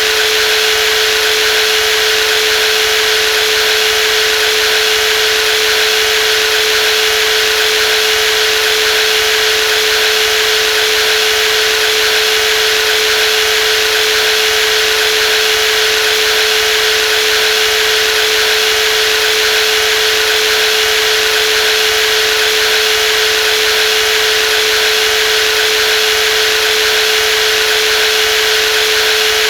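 Brushless jigsaw running steadily, with a constant whine at one pitch over an even mechanical hiss.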